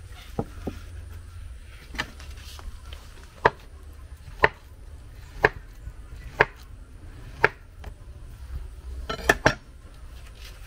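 A large knife slicing a ripe plantain into rounds on a wooden chopping board: sharp knocks about once a second as the blade strikes the board, with a quick cluster of knocks near the end.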